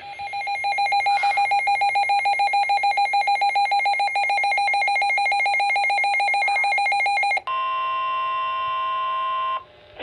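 Midland weather alert radio sounding its alert alarm: a rapid pulsing beep of several pitches together, about seven beeps a second, for about seven seconds, signalling an incoming emergency alert. It then switches to the broadcast's steady NOAA Weather Radio warning tone, held for about two seconds and stopping shortly before the end.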